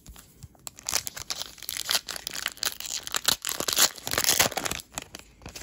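Clear cellophane wrapper of a Panini Mosaic cello pack being torn open and crumpled by hand, a dense crackling that starts about a second in and stops near the end.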